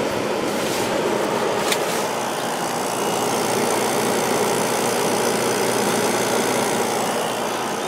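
Holmes 5200 BTU window air conditioner running: a steady rush of air from its fan, with the LG rotary compressor running underneath.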